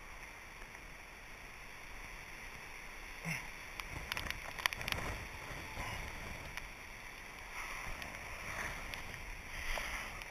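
Faint wind noise on the camera microphone with rustling from handling, and a few soft knocks about three and five seconds in.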